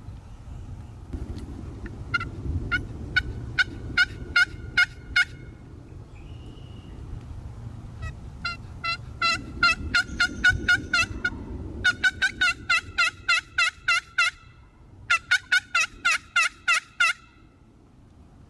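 Wild turkey yelping in three runs of evenly spaced notes, the last run the fastest, over a low outdoor rumble.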